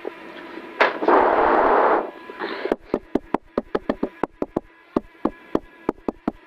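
Inside a Subaru rally car's cabin at the stage start: a loud rushing noise for about a second, then a run of sharp, irregular pops, about three a second, over the engine's steady idle.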